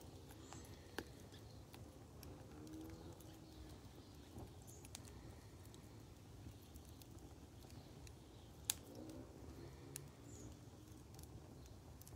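Near silence with faint, scattered crackles and pops from a wood fire burning in a fire bowl, one pop sharper than the rest about two-thirds of the way through.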